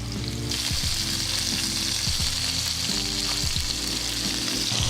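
Flour-coated beef cubes sizzling steadily in hot olive oil in a frying pan as they brown. The sizzle swells about half a second in and then holds.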